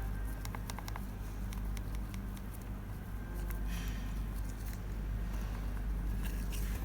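Scattered small clicks and taps from handling small electronic parts at a workbench, over a steady low electrical hum.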